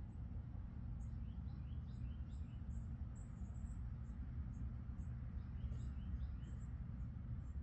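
Small birds chirping faintly in short, quick, rising notes, in two bursts of calls, over a steady low rumble of background noise.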